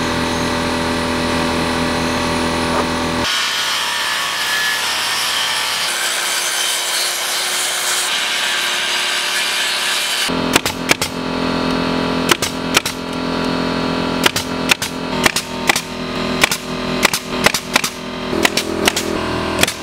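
An air compressor running steadily, then a Skilsaw circular saw cutting through a wooden siding board for about seven seconds. From about ten seconds in, a pneumatic 18-gauge brad nailer fires repeatedly, about two shots a second, over the running compressor.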